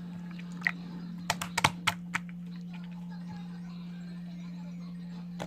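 Slime being worked by hand, giving a handful of sharp clicking pops: one, then a quick cluster of about six between one and two seconds in, over a steady low hum.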